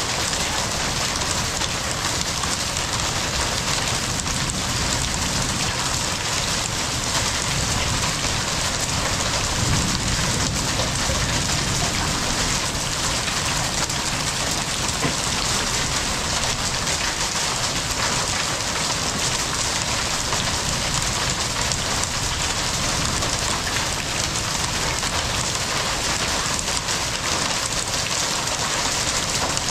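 Heavy rain pouring down steadily in a downpour.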